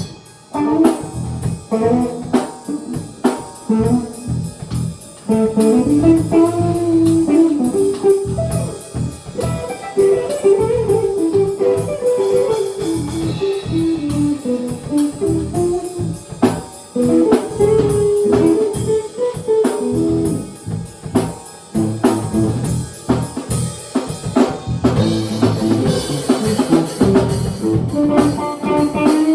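Live band jam: a guitar playing a wandering melody with gliding notes over a drum kit, in a bluesy style.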